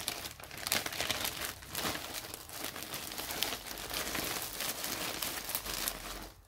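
Plastic yarn bag crinkling and rustling continuously as it is handled and the skeins are packed back into it, with many small sharp crackles.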